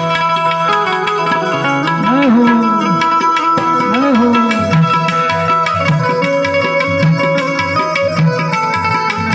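Instrumental break in a Gujarati devotional dhun: harmonium holding its melody and drone over a steady tabla rhythm, with two deep pitch-bending drum strokes about two and four seconds in.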